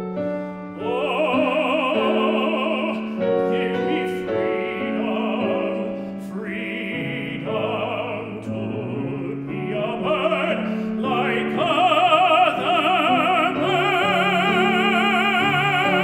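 Tenor singing an art song with vibrato over grand piano accompaniment, in phrases, holding a long note near the end.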